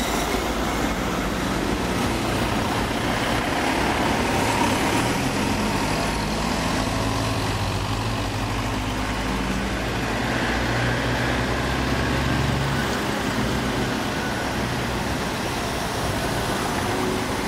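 A line of vans and minibuses driving slowly past at close range, their engines running at low speed with a steady low hum that swells in the middle and drops away about three-quarters of the way in.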